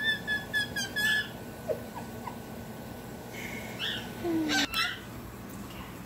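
Water-filled ceramic bird whistle warbling in quick pulses for about the first second. A few shorter chirping notes and a sharp click follow between three and five seconds in.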